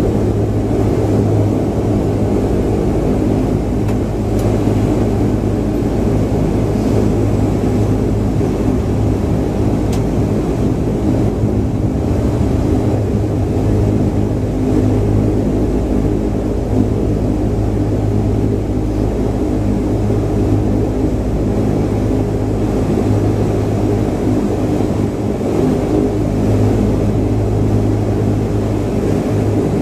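Cabin sound of a De Havilland Dash 8-300's Pratt & Whitney PW123 turboprops at low power during taxi: a steady propeller drone with a deep hum and rumble.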